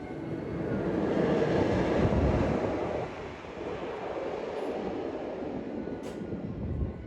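A roller coaster train running along its track, swelling to a peak about two seconds in and then falling away.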